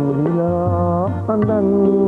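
Music from a live ensemble in a South Asian style: a melody line that slides up in pitch over a sustained low part, with hand-drum strikes.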